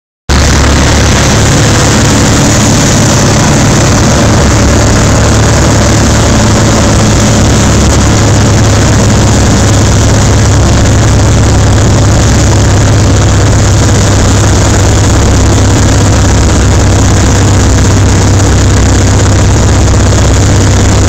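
Cessna 180's six-cylinder Continental O-470 engine and propeller running steadily in flight, heard loud from inside the cockpit.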